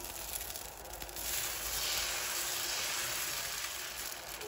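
Dosa batter sizzling on a hot tawa as a steady hiss. It dips briefly and grows stronger about a second in.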